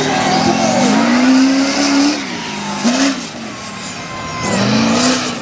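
A Chevrolet mega mud truck's Duramax turbo-diesel engine revving hard at full throttle, its pitch climbing, dropping about two seconds in, then climbing again twice as the throttle comes on and off.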